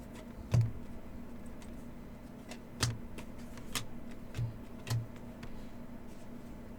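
Scattered light taps and clicks of hands handling trading cards on a tabletop, five or so over several seconds, over a steady low hum.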